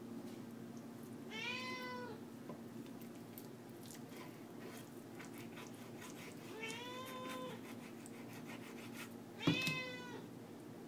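A domestic cat meowing three times to beg for food, a few seconds apart. Each meow is under a second long and rises then falls in pitch, and the last is the loudest. Faint clicks of a knife slicing raw chicken on a plastic cutting board come between the meows.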